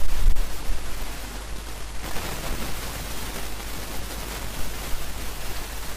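Steady hiss with a low hum underneath, no distinct events: the background noise of a voice-over microphone while nobody speaks.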